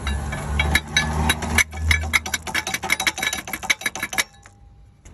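A Holden VT Commodore with a failing starter motor, during a start attempt: a low hum for about two seconds, then a fast run of sharp mechanical clicks and rattles for about two seconds that stops suddenly. The car does not start.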